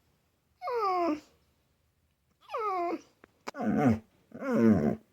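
A dog's drawn-out, word-like vocalizations: four separate calls, each sliding down in pitch, with the last two louder and deeper. This is the dog's trained mimicry of spoken words, which the owner takes as the dog naming an animal.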